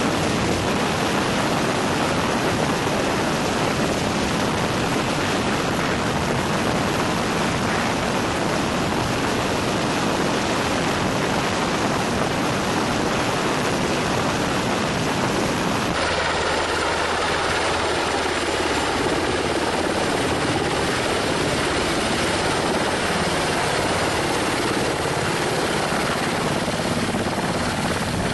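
Military helicopter, a UH-60 Black Hawk, hovering: its rotors and downwash make a steady, loud rushing noise. About halfway through, the sound changes abruptly and the low rumble drops away.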